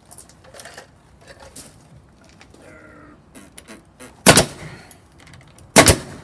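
Pneumatic nail gun firing twice, about a second and a half apart, driving nails through wooden window trim into the wall. Each shot is a sharp, very loud crack.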